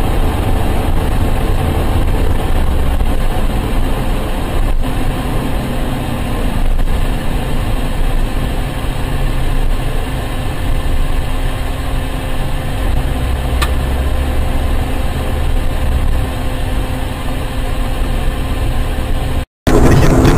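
Steady drone of a car's engine and tyre noise, heard from inside the cabin by a dashboard camera. Near the end it cuts out for a moment and a louder vehicle recording begins.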